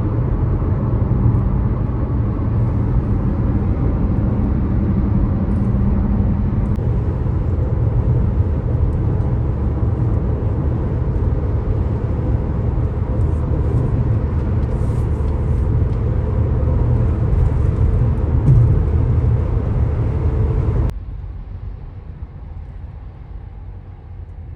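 Steady road and engine noise of a car being driven, deep and loud, dropping off suddenly to a quieter hum near the end.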